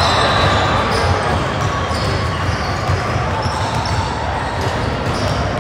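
Basketball bouncing on a gym floor, with voices in the background.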